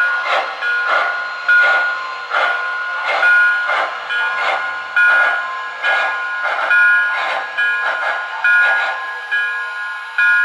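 Digital steam sound from an HO-scale MTH Erie Triplex model's DCS sound system: rhythmic exhaust chuffs about two a second, with steady high tones underneath. The chuffs thin out near the end, leaving the tones.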